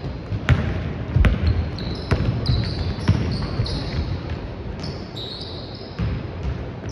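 A basketball bouncing on a hardwood court floor, with sharp knocks roughly once a second, mixed with many short high-pitched sneaker squeaks.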